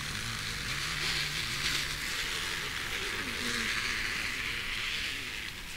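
Flattened plastic bottle wedged against a bicycle's front tyre, buzzing against the turning tread in a steady rasp, a homemade imitation of a 50cc moped. The sound eases a little near the end.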